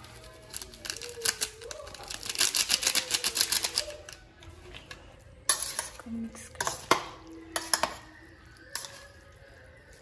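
A seasoning sachet rustling as it is emptied over the noodles, then a metal utensil mixing instant noodles in a stainless-steel bowl, with sharp clinks and scrapes of metal on metal.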